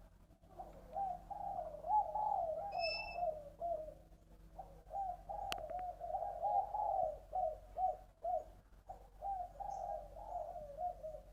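Spotted dove cooing, three long rolling coo phrases one after another. It is the call pattern that fanciers call "3 ròng giọng đồng" (three rolls, bronze voice). A brief high chirp comes about three seconds in, and a single click comes near the middle.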